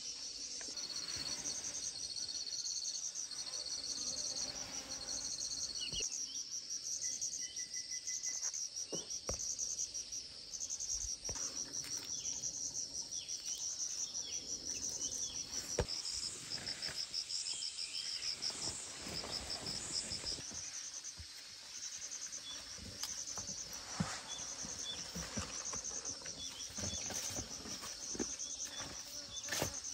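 Insects chirping in a steady high-pitched chorus of rapid, even pulses, with scattered rustles and soft knocks throughout.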